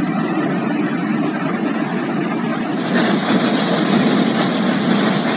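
Hailstorm: heavy hail and rain coming down in a steady, dense roar, turning brighter and hissier about three seconds in.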